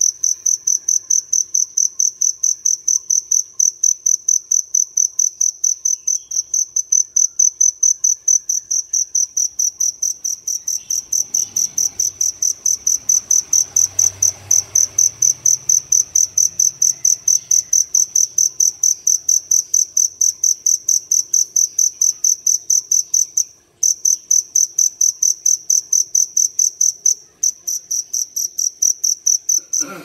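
Male fire cricket (dế lửa, a reddish-brown field cricket) calling at close range: a loud, high-pitched, regular train of chirps, several a second, with two brief breaks in the last third.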